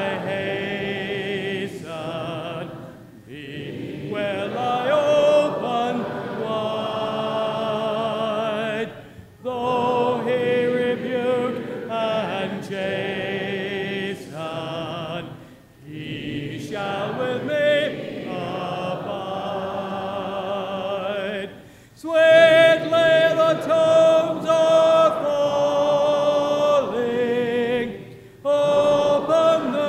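Congregation singing a hymn a cappella in parts, with many voices together and phrases separated by short pauses about every six seconds.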